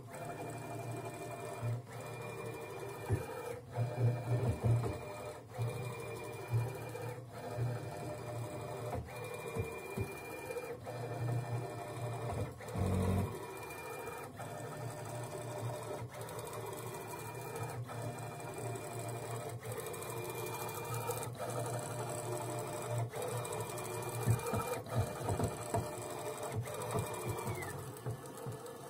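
Ball screw of a DIY CNC machine axis turning under motor drive: a steady hum and a thin high whine, broken at irregular intervals by loud clacks from the ball screw, at times several in quick succession. Near the end the whine drops in pitch and stops.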